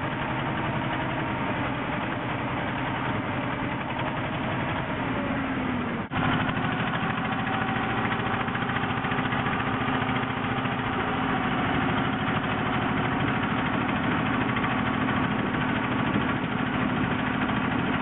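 A river boat's engine running steadily. It drops out for an instant about six seconds in, then carries on a little louder.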